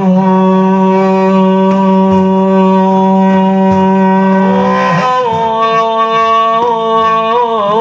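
Arabic devotional song: one melodic line holds a single steady note for about five seconds, then moves into wavering, ornamented turns.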